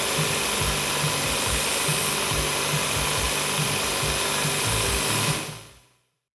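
A power tool running steadily as it works timber, with an uneven low hum under a loud hiss; it fades out about five and a half seconds in.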